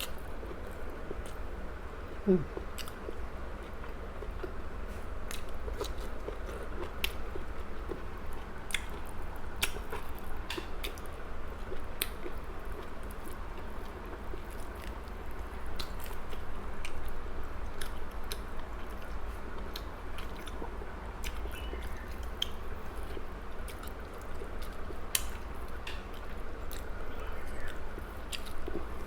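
A person chewing and biting into grilled chicken close to the microphone, with many small wet mouth clicks scattered throughout and a brief hum of the voice about two seconds in.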